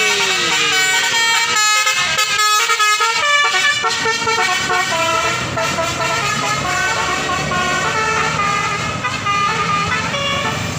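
Tour buses' telolet basuri musical horns playing tunes: pitched horn notes stepping from one to the next, with a run of quick repeated notes around two to four seconds in and longer held notes after.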